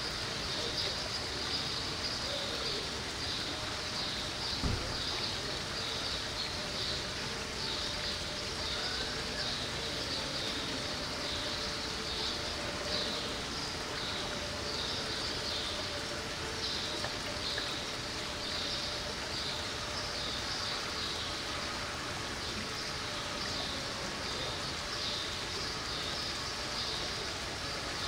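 Steady background ambience with a high, rapidly repeated chirping throughout, over a faint steady hum, and a single low thump about five seconds in.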